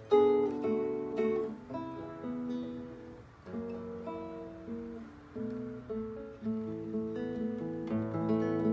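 Classical guitar played fingerstyle: a melody of plucked notes over a moving bass line, with a loud chord just after the start and a softer stretch around three seconds in.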